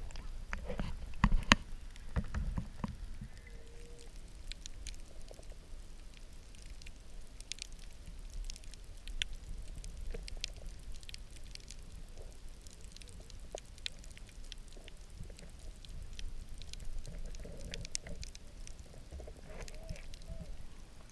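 Water splashing against a camera at the surface about a second in, then muffled underwater sound over a shallow coral reef: a steady wash of water noise dotted with many sharp clicks and crackles.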